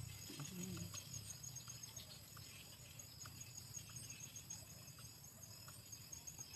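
Insects chirping: a steady, high, rapidly pulsing trill. Faint small ticks and rustles come from the wire trap being set by hand.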